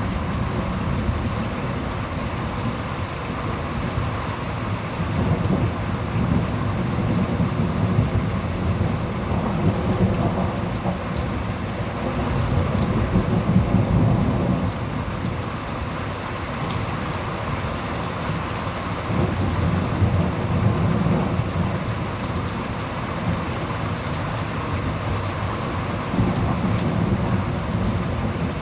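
Thunderstorm: steady rain falling, with thunder rumbling low several times, in rolling swells.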